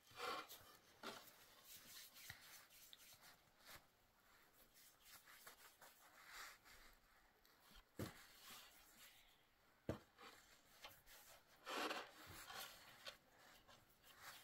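Near silence, broken by faint scattered knocks and rubbing or rustling noises, with two sharp little clicks near the middle.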